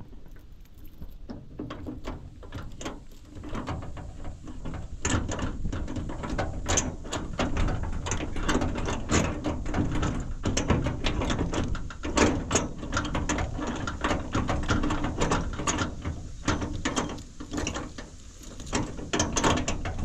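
A faulty padlock being worked by hand: a long, irregular run of small metal clicks and rattles as the shackle and key are fiddled with. The lock does not stay shut once the key is removed.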